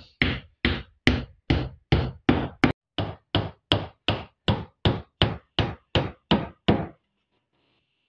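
Hammer driving nails into wood, a small wooden salt-feeder box being nailed to a barn floor: a quick, even run of blows, between two and three a second, that stops about seven seconds in.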